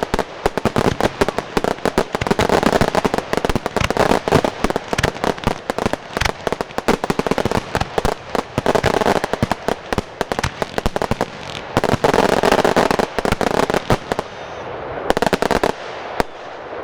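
Fireworks display finale: a dense, rapid barrage of bangs and crackle that thins in the last couple of seconds to a few separate bangs.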